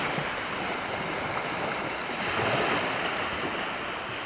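Small waves breaking and washing onto a shingle beach, a steady rush of surf that swells slightly about halfway through, with wind on the microphone.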